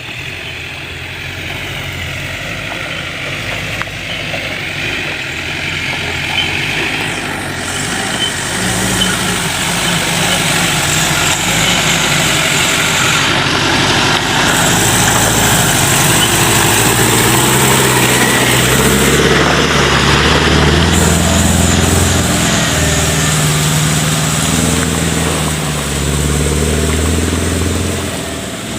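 Engine of an oil palm haul vehicle running under load, its revs rising and falling repeatedly, and growing louder through the first half.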